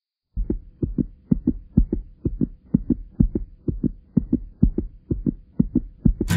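Heartbeat sound effect: a steady lub-dub of deep thumps, about two double beats a second, starting a moment in. Guitar music comes in right at the end.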